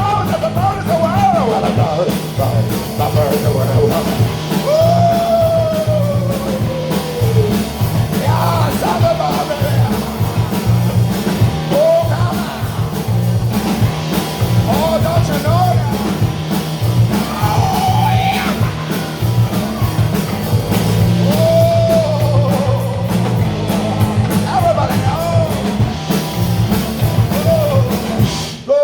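Surf rock band playing a driving beat with bass and guitar, while a singer makes wordless sliding vocal whoops and yelps over it. The music stops abruptly at the end.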